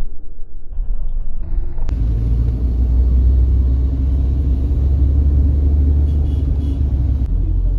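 Car engine and road noise heard from inside the cabin as the car climbs a hairpin ghat road: a steady low rumble. It is patchier and quieter for the first two seconds, then a click about two seconds in, after which it runs steadily.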